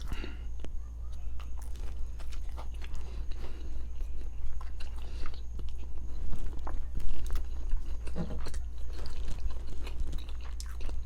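A person chewing and biting food close to the microphone, with many small mouth clicks and crunches, over a steady low electrical hum.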